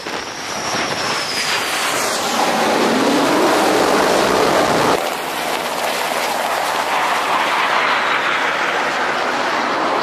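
A jet aircraft flying low past the carrier, its engine whine falling in pitch as it swells into a loud rush of jet noise. After a sudden cut about halfway through, a Seahawk helicopter's turbine and rotor noise follows as it flies past.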